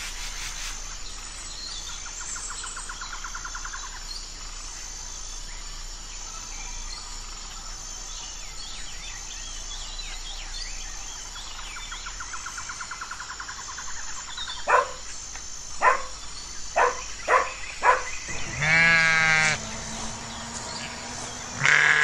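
Tropical rainforest ambience of insects and birds, with a steady pulsing high insect tone, scattered chirps and two short trills. In the last third sheep take over: five short sharp calls, then a long wavering bleat, and another bleat at the very end; the bleats are the loudest sounds.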